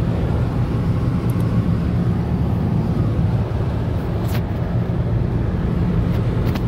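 Steady low rumble of tyre and engine noise heard inside a car's cabin while it cruises on a highway.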